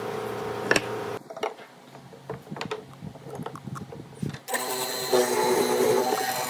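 A small power tool runs steadily and cuts off about a second in. Scattered light knocks and clicks follow, then a dense steady sound comes in near the end.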